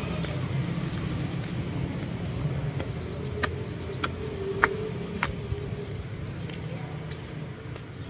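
Street traffic ambience: a steady low rumble of passing vehicles with a faint engine hum in the middle. Around the middle comes a run of four or five sharp clicks, roughly every half second.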